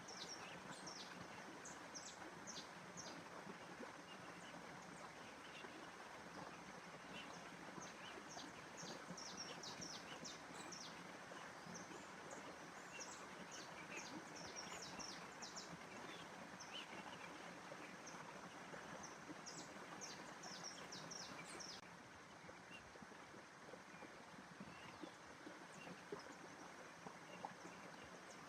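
Birds chirping in quick, high clusters over a steady soft hiss of natural background noise; the chirping thins out a little after twenty seconds and picks up again near the end.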